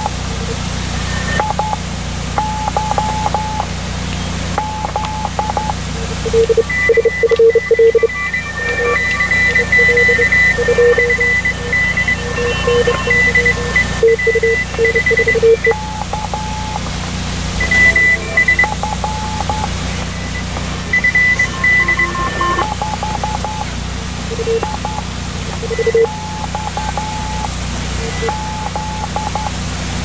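Morse code (CW) signals from an amateur radio receiver: several stations keying beeps at different pitches at once, in dots and dashes of varying length, over a steady low hum.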